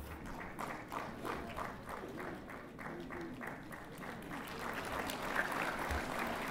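Audience applauding, at first as a run of separate claps, then thickening into fuller, slightly louder applause from about four seconds in.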